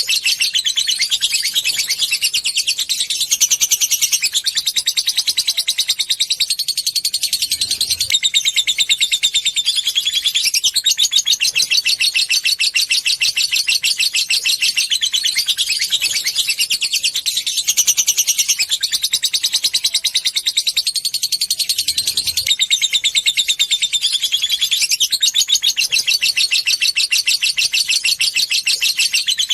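Lovebird chattering in a long, unbroken run of very fast, high chirps. The pattern shifts every few seconds.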